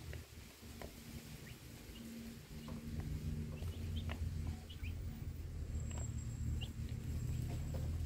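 Week-old broiler chicks peeping now and then with short high cheeps as they feed, over a low steady rumble.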